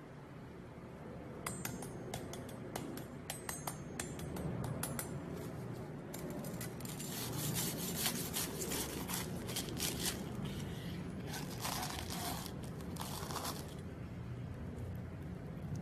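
Kitchen food-prep sounds: light clicks, taps and scrapes of a knife and utensils working food, over a steady low hum. The taps come thick and fast about six to ten seconds in, with a few longer scrapes near the end.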